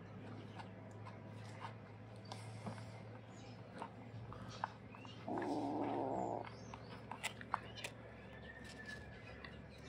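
Young black-and-white stray kitten hissing once for about a second, about halfway through, defensive while a hand strokes its head; otherwise only faint clicks.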